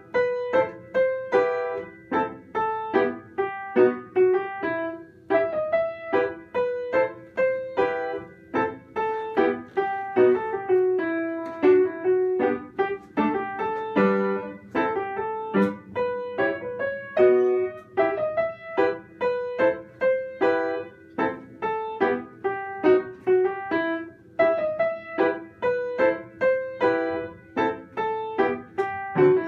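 Solo piano piece played by a child, with quick, evenly struck notes at a brisk, steady pace.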